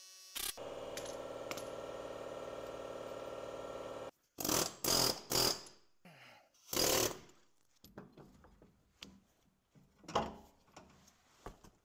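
Pneumatic air hammer hammering steadily for about three and a half seconds against the BMW E46's rear hub, driving the axle shaft's splines loose from it. Four short bursts of noise and a few light knocks follow.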